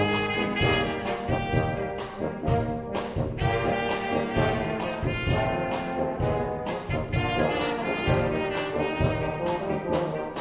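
A brass band of street performers playing a tune, with trombone and trumpet lines over a steady drum beat.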